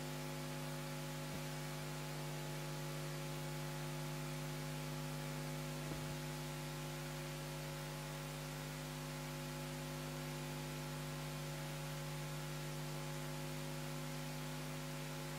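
Steady electrical mains hum with faint hiss, with a couple of tiny clicks.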